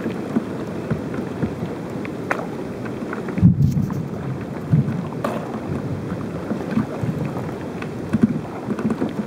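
Kayak paddling through water scattered with small ice: irregular splashes and drips from the paddle strokes over a low wind rumble on the microphone, with one heavier low thump about three and a half seconds in.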